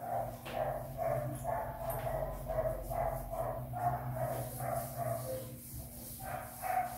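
A dog barking repeatedly, about two short barks a second with a brief pause near the end, over a steady low hum.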